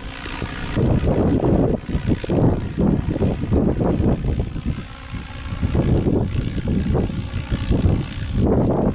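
Radio-controlled helicopter running in flight, a steady high whine over its rotor sound, half buried under strong wind gusting and buffeting the microphone.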